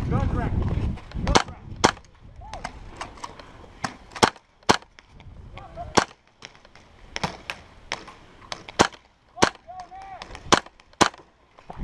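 Airsoft guns firing single shots during a skirmish: about a dozen sharp cracks at irregular intervals, some loud and close, others fainter.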